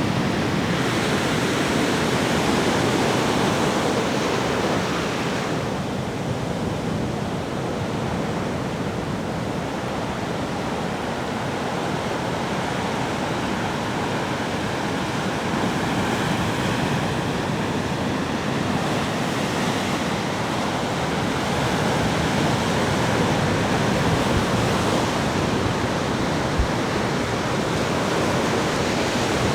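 Sea waves breaking on a beach: a continuous wash of surf that swells louder near the start and again toward the end.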